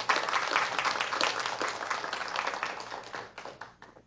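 Audience applauding, many hands clapping at once, dying away in the last second.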